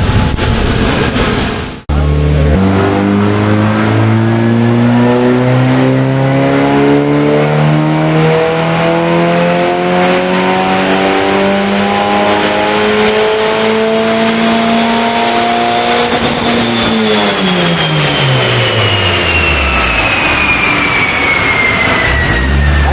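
Turbocharged Honda Civic R18 1.8-litre four-cylinder engine making a full-throttle dyno pull after a freshly updated tune. The revs climb steadily for about fourteen seconds, then the throttle closes and the engine winds down quickly while a high whine slowly falls in pitch.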